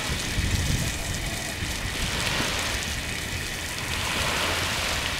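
Small waves washing onto the shore with a fizzing hiss that swells and fades about every two seconds, over wind rumbling on the microphone.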